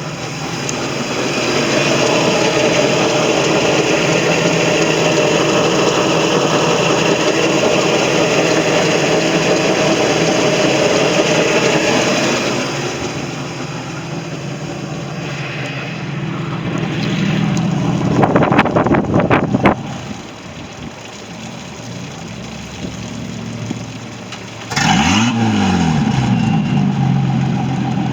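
Volvo Penta 4.3 L V6 sterndrive engine running on a test run after a lower-unit service and circulation pump replacement. It runs at a raised speed at first, then drops back toward idle about twelve seconds in. There is a short uneven louder stretch near twenty seconds, and near the end a sudden louder stretch with the pitch swinging up and down.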